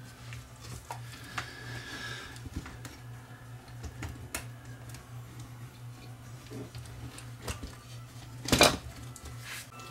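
Plastic housing of a Canon XL2 camcorder being handled and pulled apart by hand: scattered light clicks and rattles, with one loud clack about eight and a half seconds in. A steady low hum runs underneath.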